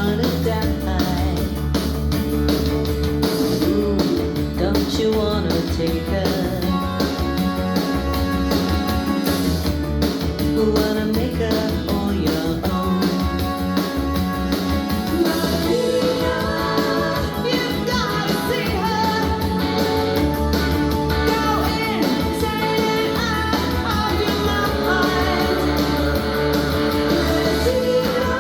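A rock song with a singer and guitars played back through a Tribit StormBox Blast 2 portable Bluetooth speaker, heavy steady bass under the vocal line, as a listening demo of the speaker.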